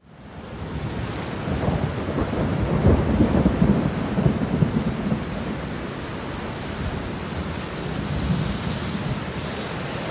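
Rain falling steadily, fading in at the start. A roll of thunder builds about a second and a half in, is loudest around three to five seconds, then dies away under the rain.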